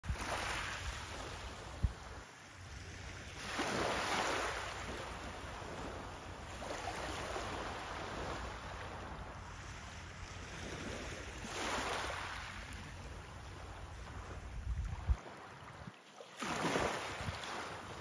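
Small waves lapping onto a pebble beach, each one swelling and fading as it washes up, about four times, under a steady low rumble of wind on the microphone.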